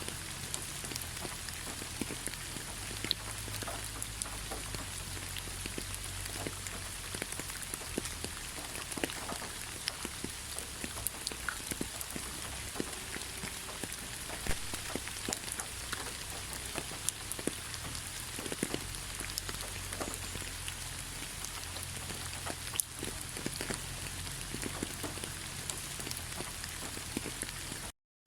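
Steady rain with many individual drops ticking and splashing over an even hiss, under a low rumble. The sound cuts out completely for a moment near the end.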